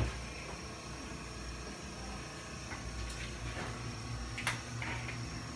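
Light handling sounds at a stainless steel bench: a few faint ticks and one sharp click about four and a half seconds in, over a steady low hum.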